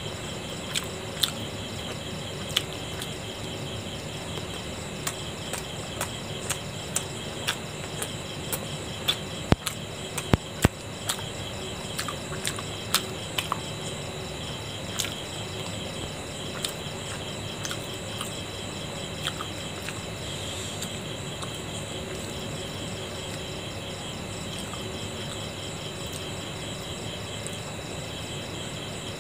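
Crickets chirping steadily in the background, with scattered sharp clicks and smacks of someone chewing momos and dipping them into a steel bowl, most of them in the first half.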